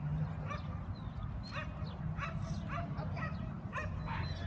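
A dog barking over and over in short, high yips, a little under two a second.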